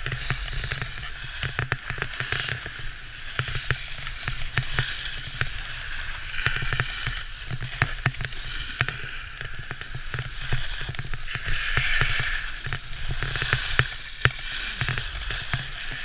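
A snowboard sliding and scraping across hard-packed snow, the scrape swelling and fading with each turn, with a low wind rumble on the camera microphone and frequent small knocks.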